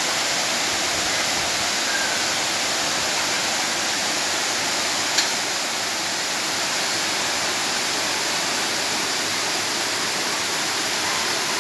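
Kedung Tolok waterfall rushing steadily, with one sharp click about five seconds in.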